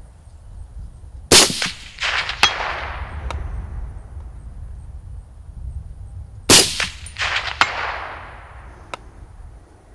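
Two shots from a suppressed .308 Springfield M1A rifle (AAC SDN-6 suppressor), about five seconds apart, each with a rolling echo. About a second after each shot comes a faint sharp clang: the bullet striking the steel target at 300 yards.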